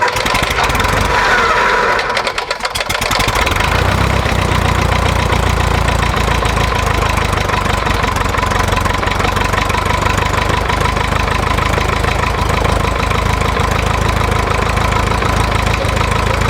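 Cessna 140's four-cylinder engine and propeller just after start-up, running unevenly for the first three seconds or so, then settling into a steady idle.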